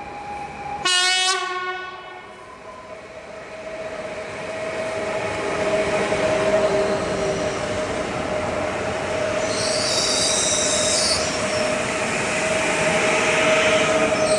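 A passenger multiple-unit train sounds its horn once, briefly, about a second in, then runs past with a steady whine under the rising rumble of wheels on rail. High wheel squeals come around the middle and again near the end.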